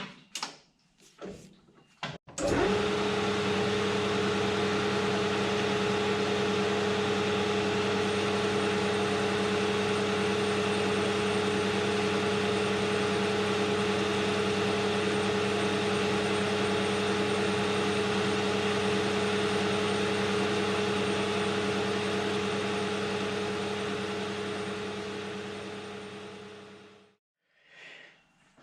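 AL960B metal lathe switched on about two seconds in, running steadily with an even hum, then switched off and spinning down to a stop near the end. It is running for a light spring pass on a steel spindle housing.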